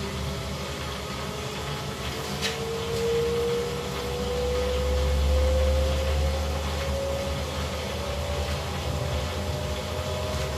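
Beko WDA 961431 washer-dryer running, its drum motor humming with a low rumble and a whine that rises slowly in pitch as the drum speeds up. A single light click about two and a half seconds in.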